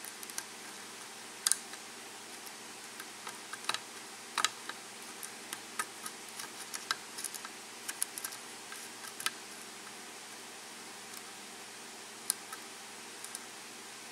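Small sharp metal clicks and ticks of a lock pick and tension wrench working the pins of a 6-pin Arrow KIK lock cylinder during single-pin picking. The clicks come thickest in the middle and thin out near the end.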